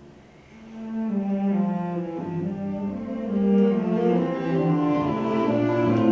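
String quartet music with the cello's bowed, sustained notes to the fore. It begins very soft and swells within the first second, then grows fuller toward the end.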